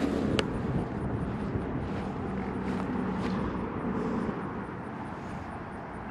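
A distant engine drone with a faint low hum, slowly fading, over a steady outdoor rumble. One sharp click about half a second in.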